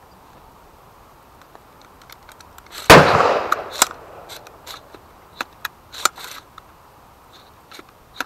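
A single loud gunshot about three seconds in, with a short echo trailing off, followed by a scatter of smaller sharp clicks and cracks.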